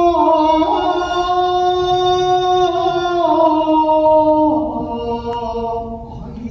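Shigin chanting of a Chinese-style poem: a single voice holding long, drawn-out notes that step gradually downward in pitch, wavering slightly on the held tones.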